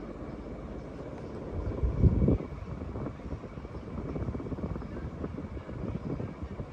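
Kenroy Tropi-Cool ceiling fan running: a steady, fluttering rush of air from the spinning blades, with a louder low rumble of moving air about two seconds in.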